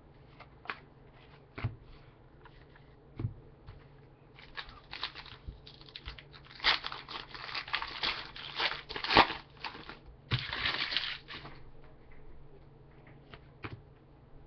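A few light clicks and taps of cards being handled, then several seconds of crackling and crinkling as a trading-card pack's wrapper is torn open and crumpled.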